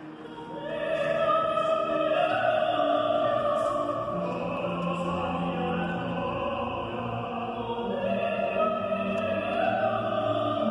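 A choir singing long held chords in full voice, echoing in a large church. The singing starts about half a second in and swells quickly.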